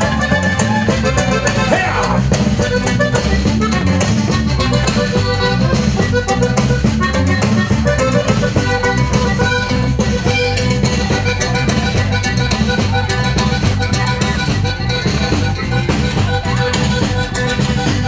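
Norteño band playing dance music live: accordion lead over bass and drums with a steady beat.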